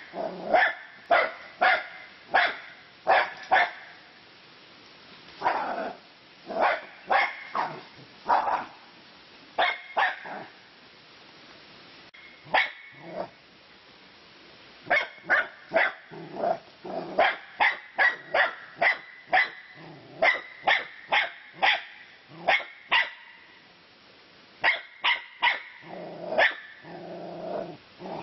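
Dog barking in bouts of quick, sharp barks, several a second, with short pauses between bouts, then growling near the end.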